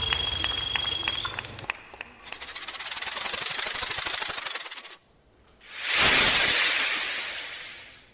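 Sound effects from a stage dance's backing track: a held high chord that breaks off after about a second, then a rapid, rattling hiss. After a brief silence a second hiss swells up and slowly fades away.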